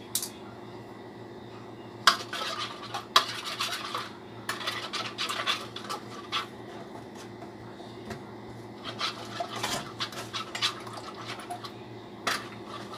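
Metal spoon beating eggs in a ceramic plate, clinking and scraping against the plate in bursts of rapid taps with pauses between.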